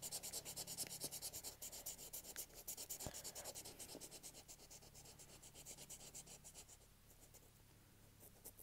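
Marker pen scribbling on paper in fast back-and-forth strokes while colouring in an area, several strokes a second, faint, fading away after about six seconds.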